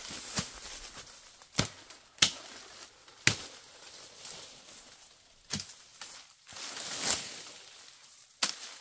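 Footsteps and rustling through dry undergrowth and leaf litter, broken by about half a dozen sharp cracks spaced a second or more apart, as a person pushes through brush with a machete and crouches to the ground.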